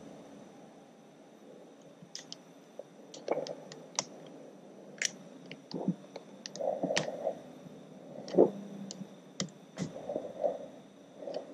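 Irregular light clicks and clinks of a socket wrench and extension being handled while fitting small screws.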